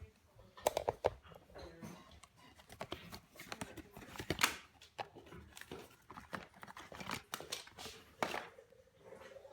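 Crinkling packaging with irregular clicks and knocks as Shimano Dura-Ace bicycle hubs are unwrapped and handled.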